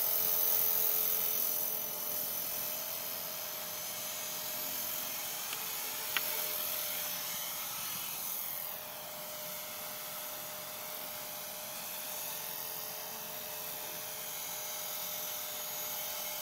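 High-pitched whine and rotor whir of a radio-controlled electric model helicopter flying. The pitch swings up and down about halfway through as it manoeuvres.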